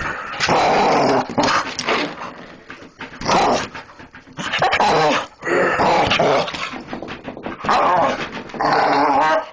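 A dog growling loudly in repeated bouts, about seven of them with short breaks between.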